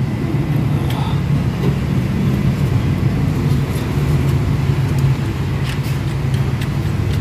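Toyota Revo engine running at a steady idle with a low hum, and a few light clicks of tools on the engine.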